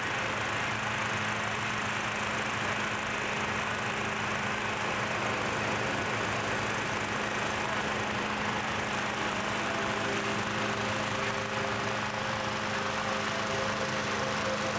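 Small gasoline engine of a hot-air balloon inflator fan running steadily at constant speed, blowing cold air into a balloon envelope during the cold-inflation stage.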